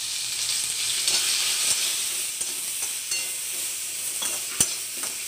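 Drumstick pieces sizzling hard in hot oil in a metal wok, freshly added and giving off steam, while a metal ladle stirs them with scrapes and small clicks against the pan. A sharper knock of the ladle comes about four and a half seconds in.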